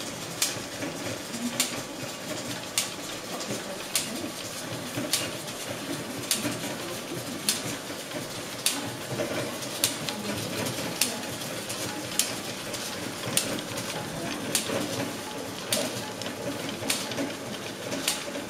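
Posamenter silk-ribbon loom running: a steady mechanical clatter, with a sharp clack about every 1.2 seconds and lighter clicks in between.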